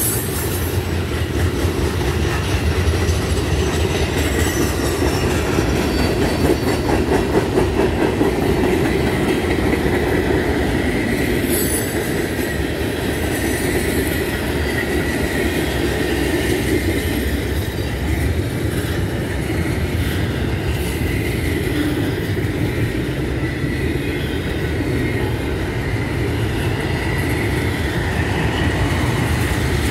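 Freight train cars rolling past: a steady rumble of steel wheels on rail with clicking over the rail joints, and a faint high wheel squeal that comes and goes as the cars take the connection track.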